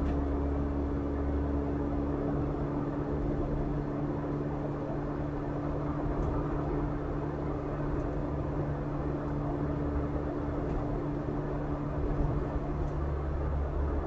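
Car driving along: steady engine hum and road noise, with a low drone that eases off and comes back near the end.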